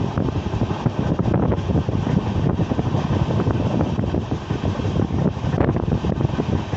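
Wind buffeting the microphone from a moving train, over the train's steady running rumble.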